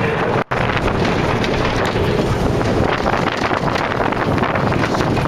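Wind buffeting the microphone over the rumble of a bobsled coaster car running fast through the curves of its trough: a steady, loud rush. The sound cuts out for an instant about half a second in.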